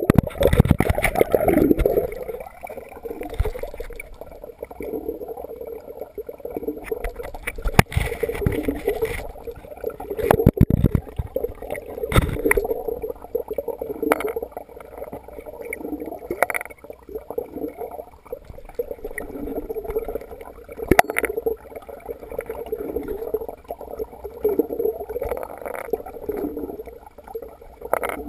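Muffled water gurgling and sloshing heard by a camera submerged in a wooden water trough, loudest in the first two seconds as it goes under. A few sharp knocks come through now and then.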